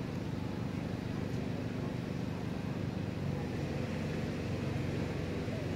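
A motor engine running steadily nearby, a low drone made of several held tones whose note shifts about three seconds in.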